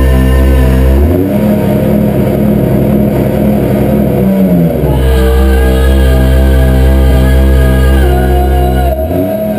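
Loud live industrial electronic music through a PA: heavy droning bass tones held steady, switching to a new pitch about a second in, again near five seconds and again near nine seconds.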